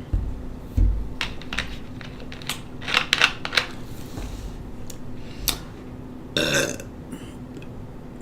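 A person burps briefly, about six and a half seconds in. Before it come two low thumps and a run of sharp clicks and knocks, loudest around three seconds in.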